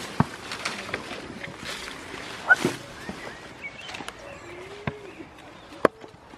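Goats' hooves knocking and splashing irregularly on waterlogged ground, with a few short chirps and a brief low call about two-thirds in.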